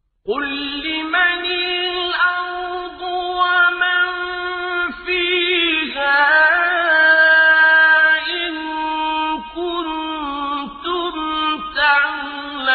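A single voice chanting Quranic Arabic in melodic recitation (tajweed), holding long, ornamented notes with wavering pitch and brief breaks between phrases.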